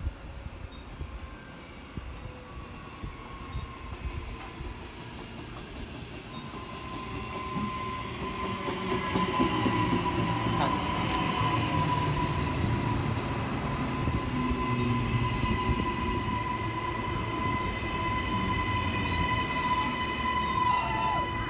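A train running past, growing louder over the first several seconds and then holding steady. A high, steady wheel squeal starts about six seconds in and lasts until it drops away near the end.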